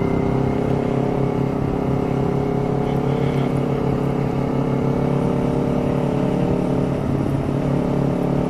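Motorcycle engine running at a steady cruising speed, with wind and road noise on the microphone.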